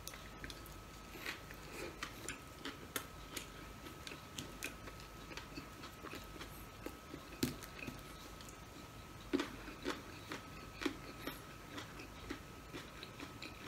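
Close-miked chewing of a mouthful of burger: soft, irregular wet mouth clicks and smacks, with a few louder ones in the second half. A faint steady high whine runs underneath.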